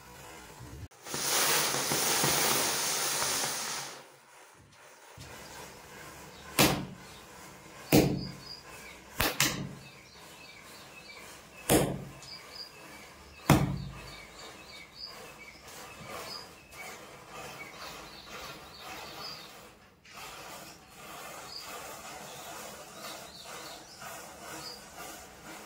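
A chain of burning matchsticks: a rush of hissing as a cluster of match heads flares for about three seconds, then six sharp pops over the next seven seconds, then faint crackling as the flames creep along the line.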